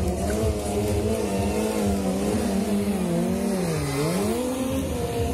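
Stunt motorcycle engine held at high revs during a wheelie, the pitch wavering with small throttle changes, then dipping sharply and climbing again about four seconds in.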